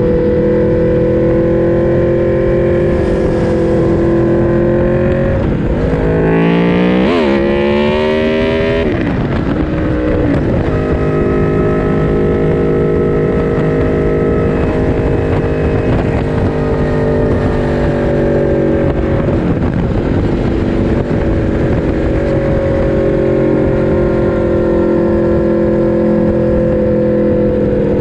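Four-cylinder naked sport-bike engine at race pace, heard from an onboard camera and held at high revs. About six seconds in, the revs drop, then climb quickly with a gear change before holding high again.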